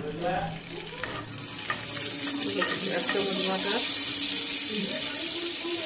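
Butter melting and sizzling in hot oil in a nonstick pan, foaming and being stirred with a spatula. The sizzle builds from about two seconds in and holds steady.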